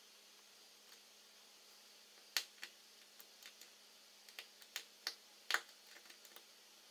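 Faint, sharp little clicks and ticks, about a dozen in irregular succession, the loudest about two and a half and five and a half seconds in: a small Phillips screwdriver and tiny screws tapping against an iPhone 5's metal logic-board shield as the shield screws are driven in.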